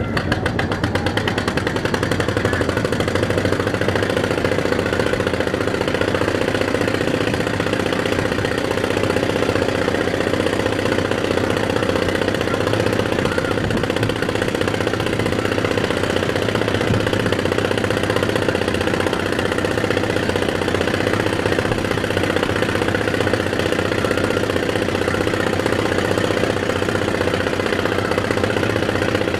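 A fishing trawler's engine running steadily, with a fast, even rhythm.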